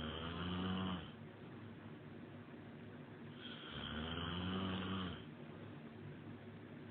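A man snoring in slow, regular breaths: one snore dies away about a second in and another long snore, lasting about a second and a half, comes near the middle.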